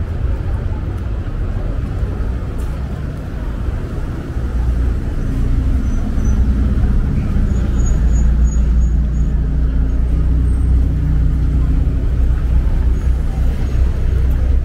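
Street traffic: a motor vehicle's engine running close by with a low, steady hum, which grows louder about four seconds in.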